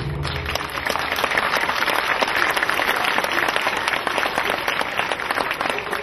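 Audience applauding steadily, a dense mass of many hands clapping.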